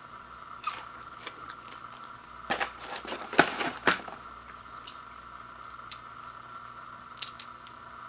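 Packaging of a microwave popcorn box being handled: scattered clicks and taps, with a burst of crinkling and rustling about two and a half seconds in lasting a little over a second, and a few sharp clicks near the end.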